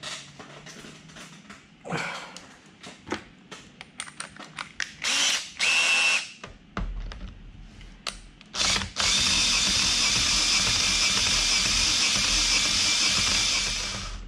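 Light clicks and taps of parts being handled, then a cordless drill run in a few short bursts and then steadily for about five seconds, spinning a Webster model engine over through the starter fitting on its crankshaft. The steady run has a motor whine.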